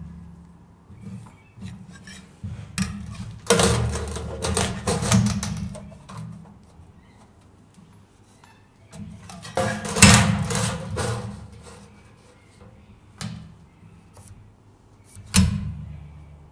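A metal square clattering and scraping against a sheet of galvanised steel on a metal bench as it is set down, slid along and lifted off while marking out. The noise comes in several separate bursts, the loudest about ten seconds in, with a couple of sharp knocks near the end.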